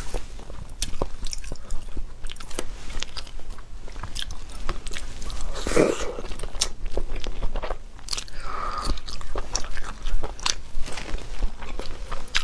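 Close-miked eating of a cooked egg: a person bites and chews, with crisp crunching clicks and wet mouth sounds.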